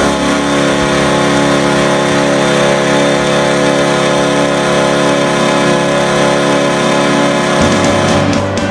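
Nashville Predators' ice hockey goal horn sounding one long, steady, multi-tone blast. It ends about seven and a half seconds in, as music with a beat comes in.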